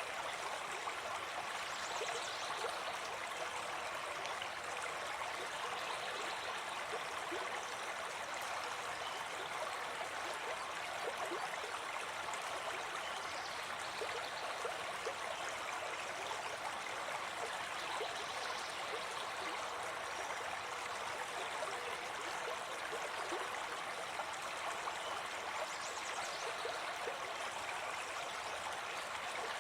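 Forest stream flowing steadily, a constant rushing babble of running water.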